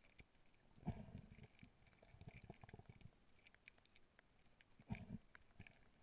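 Faint underwater ambience on a coral reef: scattered light clicks and crackle, with rough low rumbling bursts about a second in, between two and three seconds, and a louder one near five seconds.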